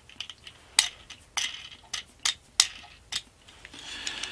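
Small metal hardware clicking and tapping as a washer and wing nut are fitted onto a coach bolt through a wooden clamp: about six sharp clicks over a few seconds, then a brief soft rustle of handling near the end.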